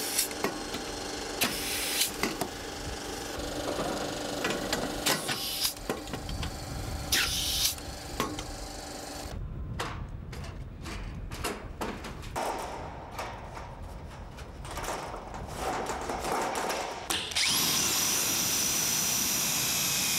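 Power screw gun driving self-drilling screws into ribbed steel roof sheeting: several short high whines that wind down in pitch, then a stretch of light knocks and clatter. About three-quarters of the way in, a whine rises quickly and holds at full speed.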